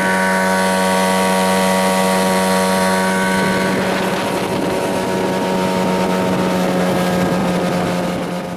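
Marlin 9.8 outboard motor running steadily at high throttle, pushing an inflatable boat at speed, with wind buffeting the microphone.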